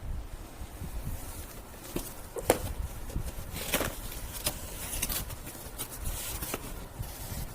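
Handling sounds from unpacking a small boxed device: scattered light clicks and knocks with a few short rustles, the sharpest knock about two and a half seconds in.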